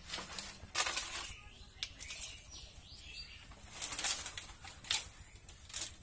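Dry bamboo sticks and twigs rustling and clattering as they are pulled by hand from a firewood pile. The sound comes in short, irregular bursts, loudest about a second in and again near five seconds in.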